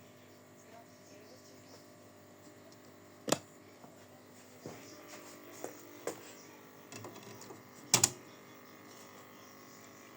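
Scattered clicks and taps as a DVD case is handled, the loudest a sharp double click about eight seconds in, over a faint steady hum.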